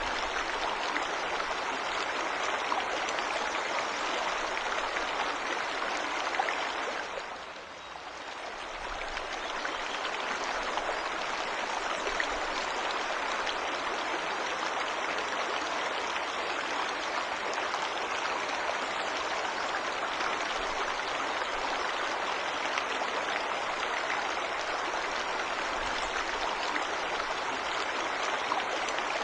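Waterfall rushing steadily into a stream, an even hiss and splash of falling water. The sound fades briefly about seven seconds in, then returns at the same level.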